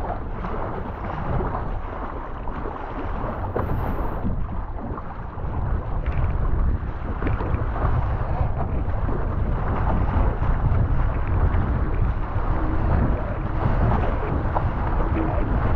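Steady wind buffeting the microphone over rushing water, with no engine; it grows louder about six seconds in.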